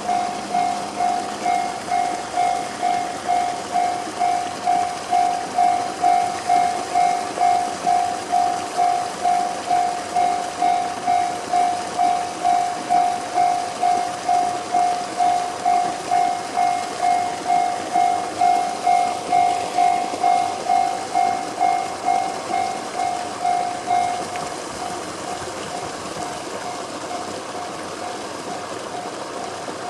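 Japanese railway level-crossing alarm in the JR standard electronic tone, striking about twice a second. It cuts off about 24 seconds in.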